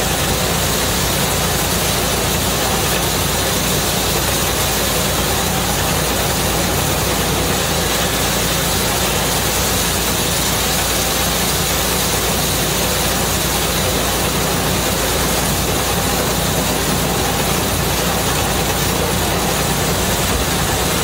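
Small portable rice thresher running steadily, its drum threshing the bundles of rice stalks held against it.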